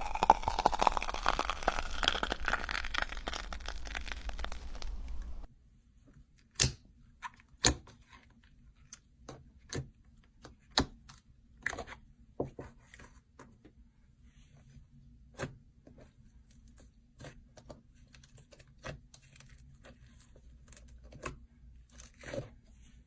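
Slime being worked by hand: dense crackling and tearing for about the first five seconds, then scattered sharp pops and crackles.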